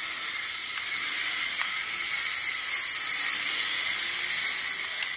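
Small electric motor of a Carrera Hybrid toy race car running under throttle as it laps the track: a steady hiss with a faint hum that rises and falls, and a few faint ticks.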